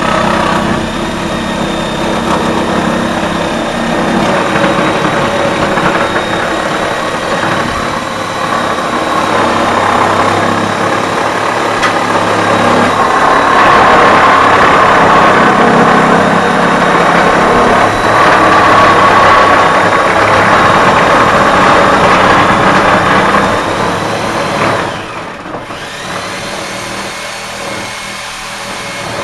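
Loud, continuous machine noise of roof demolition: a motor running steadily with a thin high whine over it. It grows louder in the middle, breaks off sharply about 25 seconds in, then carries on more quietly.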